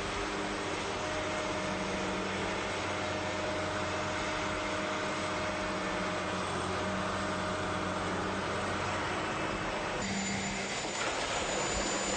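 Construction machinery engines running steadily. The sound changes about ten seconds in to a different engine hum with a faint high whine.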